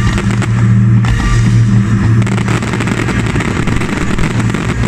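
Fireworks finale barrage: many shells and comets launching and crackling over a steady low drone, turning into a thick, rapid crackle of small reports about two seconds in.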